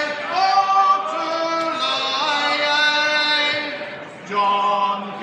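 A group of men and women singing a sea shanty together in a cathedral, in long held notes; one sung line ends about four seconds in and, after a brief breath, the next line begins.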